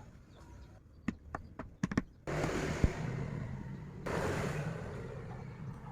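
A few sharp taps, then two bursts of a power tool working wood, each starting suddenly with a low motor hum under a dense rushing noise; the second burst slowly fades out.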